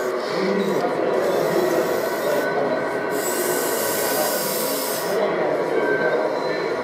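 Radio-controlled hydraulic model excavator at work: a steady mechanical running noise from its motors and pump, with a burst of high hiss from about three to five seconds in.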